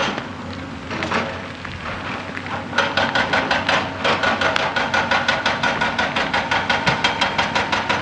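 Excavator-mounted hydraulic rock breaker hammering rock in a rapid, even rattle of blows, about nine a second. The blows ease off briefly near the start and come back at full strength about three seconds in, with the excavator's engine running underneath.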